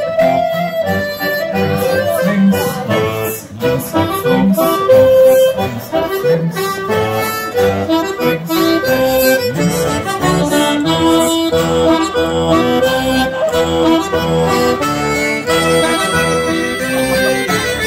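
Live Celtic folk dance tune led by an accordion, a steady, rhythmic melody played for a line of dancers.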